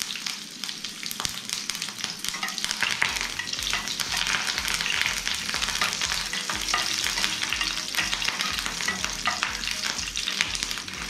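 Curry leaves, green chillies and black mustard seeds sizzling in hot oil in a non-stick frying pan, with many small pops, while a spatula stirs them. This is a tempering (tadka) being fried.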